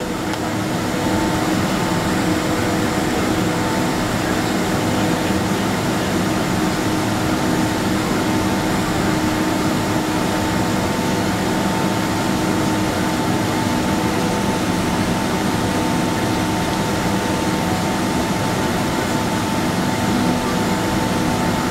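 Boeing 767-200ER jet engines running at idle thrust during taxi, heard inside the cabin: a steady rushing hum with a few faint steady whining tones over it and no change in power.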